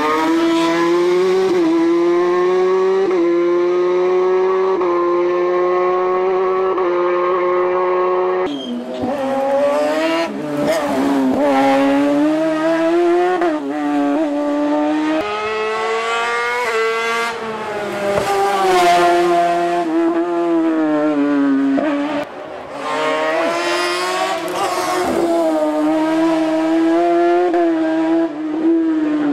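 Silver Car S2 hillclimb race car driven hard, its engine note climbing and stepping up through the gears, then dropping and rising again as it brakes and accelerates through the bends. Tyres squeal at times.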